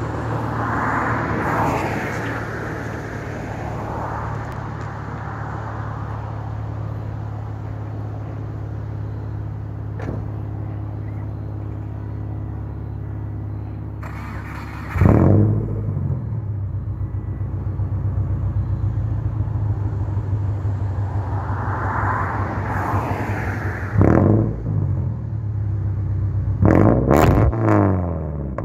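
Subaru Impreza wagon's naturally aspirated flat-four engine running through a straight exhaust with no muffler or resonator: a loud, steady idle. Short revs from throttle blips come about halfway through, again near the end, and then twice in quick succession.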